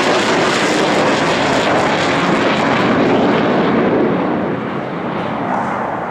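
Military fighter jet's engines roaring loudly as it passes low overhead, growing duller and fading after about four seconds.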